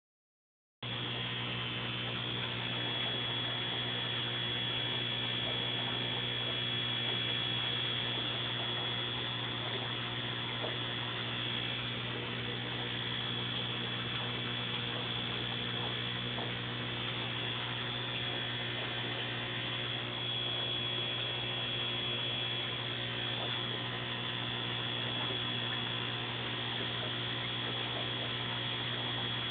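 Aquarium equipment humming steadily: a low electrical drone with a thin high whine over it, starting about a second in.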